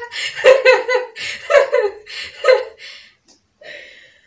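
A woman laughing heartily in loud repeated bursts, about two a second, trailing off after about three seconds into a softer, breathy laugh near the end.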